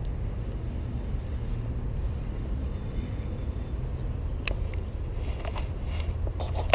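A steady low rumble, with a few sharp clicks about four and a half seconds in and again near the end as a baitcasting rod and reel are handled.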